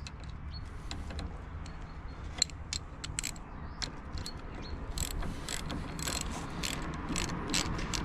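A ratchet clicking in short irregular runs of clicks while a nut or strap on the MGA 1600's front suspension is worked, over a steady low hum.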